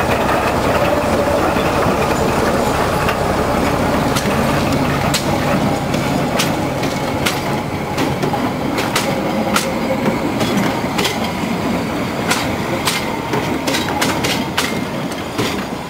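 Narrow-gauge diesel train rolling past close by: the locomotive's engine running while its wheels and the passenger cars' wheels click over the rail joints. The clicks come at uneven intervals, and the sound slowly fades as the train moves off.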